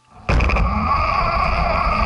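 Radio-controlled 4x4 car's motor and drivetrain starting up suddenly and running hard at a steady high pitch over a low rumble.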